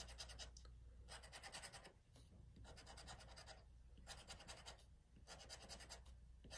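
Faint scraping of a pen-shaped scratcher tool rubbing the latex coating off a lottery scratch-off ticket, in rapid back-and-forth strokes. It comes in five short bursts with brief pauses between them, one spot uncovered after another.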